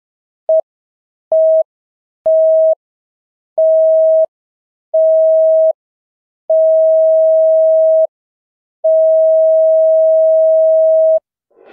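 Film-leader countdown beeps: a single pure mid-pitched tone sounded seven times with silent gaps, each beep longer than the one before, the last lasting over two seconds.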